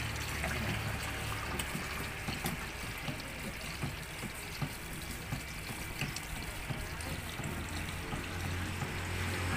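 Water pouring in a steady stream from a large plastic Aqua gallon water bottle into a plastic bucket, with small scattered clicks from a plastic spoon stirring the mixture.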